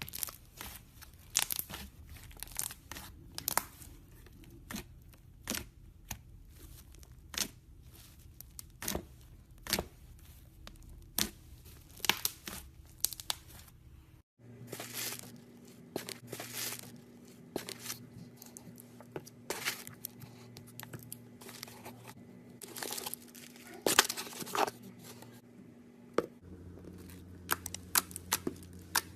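Slime being squeezed, stretched and pulled apart by hand, giving irregular sharp sticky clicks and crackling pops. The background changes abruptly about halfway through and again near the end, where one clip cuts to the next.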